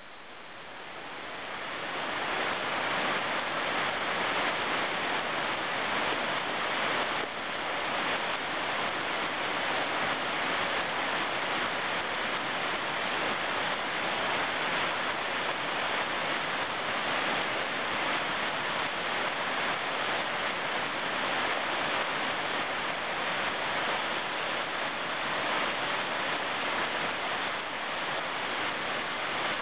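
Whitewater rapid rushing over rocks: a steady, loud churning of water, swelling up over the first couple of seconds and then holding level.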